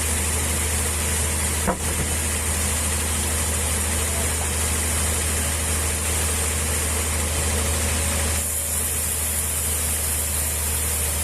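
An engine running steadily with a low hum, and one sharp knock about two seconds in.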